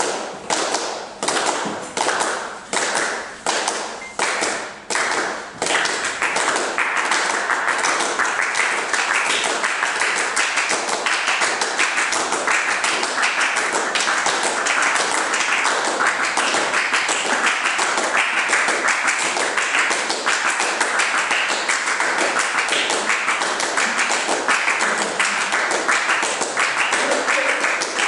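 A group of about a dozen people clapping their hands: together on a slow beat, about one ragged clap a second, then from about five seconds in a dense, continuous flurry of overlapping claps.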